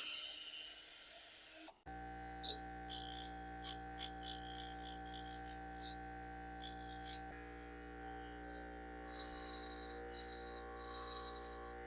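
Background music starting about two seconds in: a steady drone with repeated short jingling, tambourine-like percussion.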